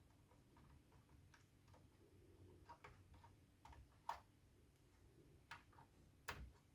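Near silence broken by faint, irregular light clicks and taps, the loudest about four seconds in and just after six seconds.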